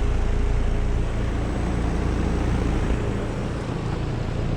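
American Standard Allegiance 16 outdoor condensing unit running: the compressor's steady low hum under the rushing of the condenser fan, at an even level.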